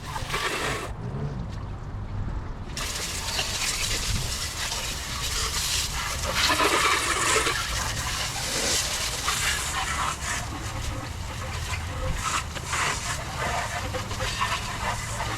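Water spraying from a hose onto a car's engine bay, rinsing off degreaser, an uneven hiss that swells and fades as the spray moves, with a short lull about a second in.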